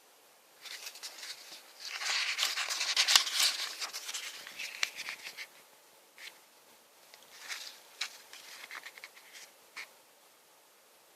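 Packaging being handled: rustling and crinkling with many small clicks, in two spells, the first and louder one during the first half.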